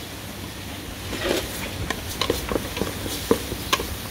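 A wooden spatula scraping and clacking against an aluminium pot while a ground spice paste is stirred in hot oil, with a scrape just after the first second and then sharp irregular knocks about twice a second.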